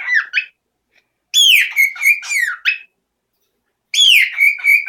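A male pet bird whistling a loud song phrase twice. Each phrase is a high note gliding down, followed by a quick run of repeated falling whistles.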